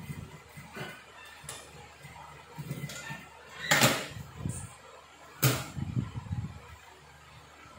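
Two sharp clacks about a second and a half apart at an industrial sewing machine, with softer fabric handling and low machine noise between them.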